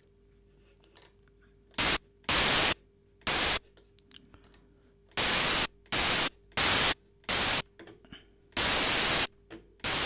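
White noise from FL Studio's 3x OSC synth, with all three oscillators set to noise, played as notes from the piano roll keyboard. There are about eight hissing bursts from about two seconds in, each starting and stopping abruptly and lasting well under a second.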